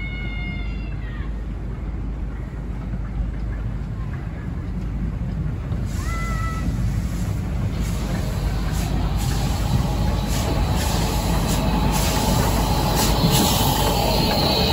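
Small LMS 'Pug' 0-4-0 saddle-tank steam locomotive running slowly into the platform and drawing close past. Uneven sharp steam beats and hiss come over a low rumble of the wheels, growing louder as it comes alongside.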